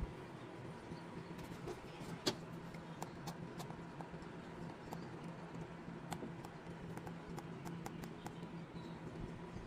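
Scattered light clicks and taps from a laptop touchpad and a stylus pen tapping the touchscreen, the sharpest one a couple of seconds in, over a steady low hum.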